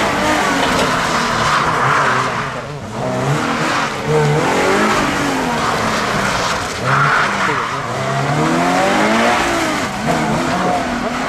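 Toyota GR86 rally car's flat-four engine revving up and falling back several times as it is driven hard through tight turns, with the rear tyres squealing as they slide, loudest about two seconds in and again about seven seconds in.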